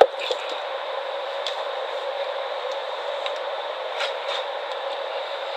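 Steady hiss with a few faint clicks and taps as electrical wires and fittings are handled.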